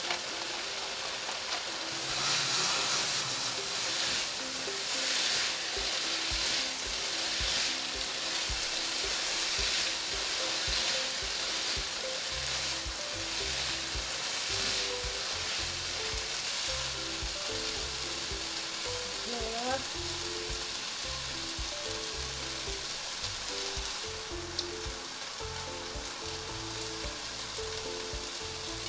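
Mixed vegetables sizzling in oil in a nonstick sauté pan while a spatula stirs them; the sizzle is loudest in the first half and eases off later. Background music with a steady bass line plays underneath.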